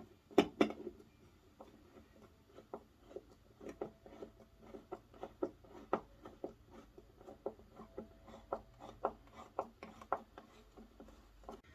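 Irregular light taps and clicks of small curtain hardware being handled and fitted by hand, with two sharper knocks about half a second in.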